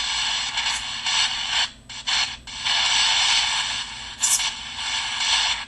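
Steady hiss of a white-noise app played as a carrier for spirit voices, cutting out briefly twice about two seconds in and again near the end.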